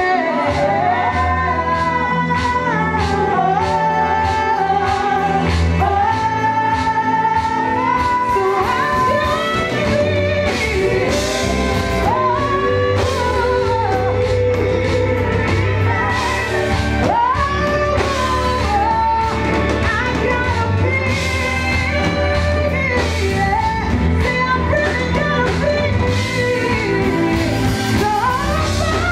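Live band music: vocalists singing over a drum kit, electric guitar and keyboard, with a steady beat.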